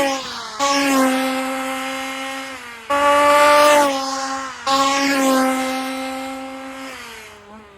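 Small petrol engine of a 1/5-scale RC Formula 1 car buzzing at high revs. Its note holds steady, then drops in pitch and fades as the car goes past. The sound jumps back in suddenly and loud three times, as fresh passes start.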